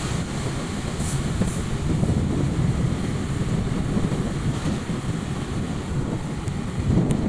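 Steady low rumble of a moving motorcycle ride: engine running and wind noise buffeting the microphone, with a few faint ticks.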